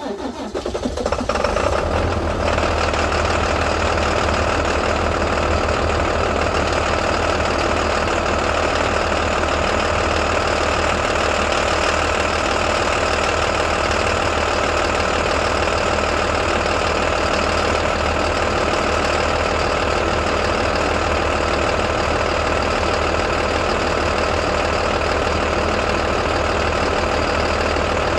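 The MaxxForce DT inline-six diesel of a 2012 IC CE school bus, just after a cold start: it catches, builds up over about two seconds, then settles into a steady idle.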